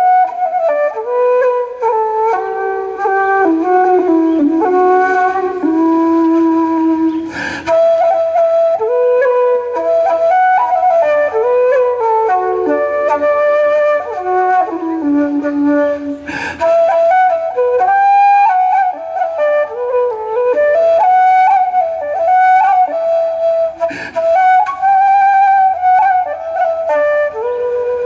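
Live instrumental music with no singing: a moving melody over sustained notes, with a short noisy accent roughly every eight seconds.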